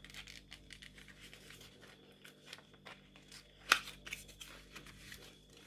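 Faint rustling and tearing of packaging as a pack of fine art pencils is opened by hand, with light clicks throughout and one sharper click about two-thirds of the way through.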